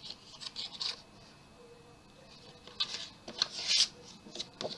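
Photo cards and paper album inserts being handled, rustling and scraping in short bursts, with a louder stretch about three seconds in.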